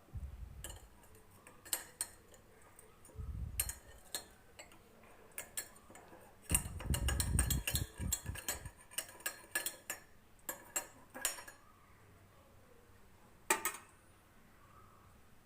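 Metal spoon clinking and scraping against a pan while stirring a honey-and-sugar syrup, in irregular clicks and knocks that are busiest through the middle, with a few low bumps.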